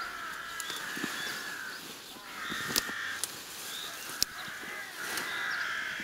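Harsh bird calls, like crows cawing, in repeated stretches about a second long. A few sharp cracks from willow branches being stacked on a brush pile come in the middle.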